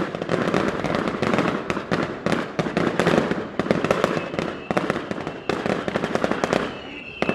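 Fireworks going off: a dense, rapid run of crackling cracks and bangs with no break, thinning out about a second before the end.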